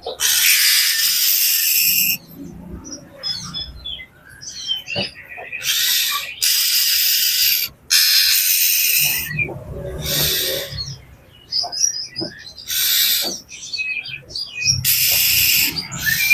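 Oriental magpie-robin (kacer) in agitated, quarrelsome calling: about six loud harsh rasping churrs, each half a second to two seconds long, broken up by short chirps and whistled notes.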